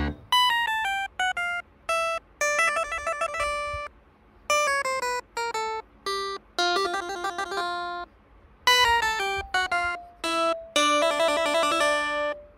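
Background music: a light melody of single bright notes in short falling phrases, some with runs of quick repeated notes, broken by short pauses.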